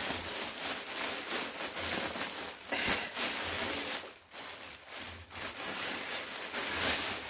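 Black plastic courier bag rustling and crinkling as it is handled, untied and pulled open by hand, with a short pause about four seconds in.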